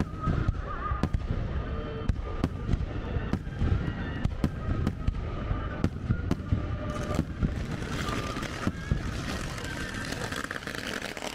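Fireworks display going off in a rapid, irregular string of sharp bangs, about two to three a second, over a continuous low rumble.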